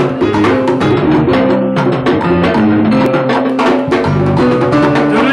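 Live salsa band playing with no singing: timbales, congas and drum kit keep a busy rhythm of sharp clicking strokes over bass and keyboard.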